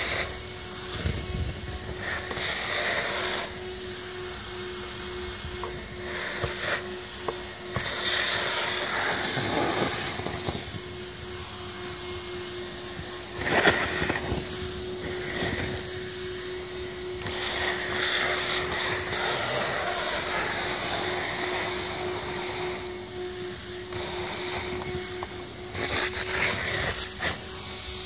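Omnivac gutter vacuum running with a steady hum, its nozzle sucking debris out of a uPVC gutter; the rush of air swells and falls irregularly with scattered clicks, and a sharp, louder clatter about halfway through.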